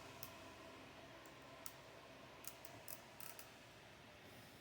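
A few faint, scattered clicks and taps of hard plastic toy parts being handled, as an accessory hand holding an umbrella is pushed into a small figure.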